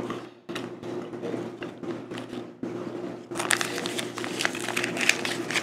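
Paper and foil wrapper of a chocolate bar crinkling and rustling as it is pulled open by hand. The crackle gets denser and louder about three seconds in.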